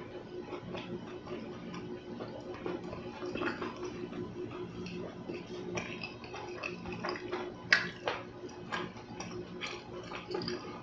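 Eating sounds: scattered small clicks and taps of cutlery against a dish, with one sharp, louder click about three-quarters of the way through, over a steady low hum.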